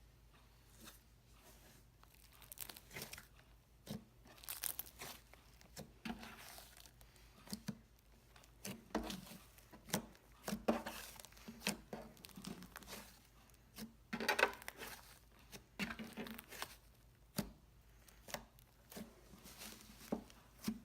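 Butter slime being stretched, squished and poked by hand: irregular sticky, crackling, tearing noises, with a few sharp pops.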